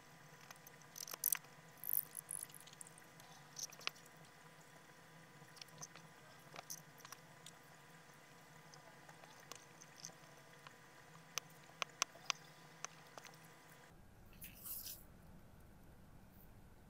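Faint scattered small clicks and scratches of a cotton swab and a cloth rubbing polish residue off a metal coin. A short swish comes near the end.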